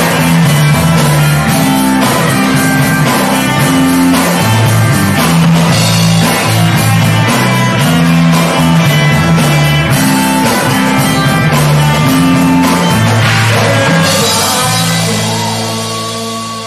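Rock band playing live: electric guitars, bass and drum kit. About fourteen seconds in the drums stop, and a held final chord rings on and fades out.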